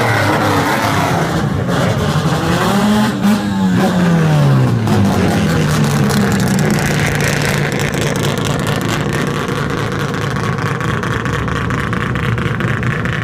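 Old Japanese kaido-racer cars with loud aftermarket exhausts rolling past close by, revving up and down twice in the first half, then running more steadily.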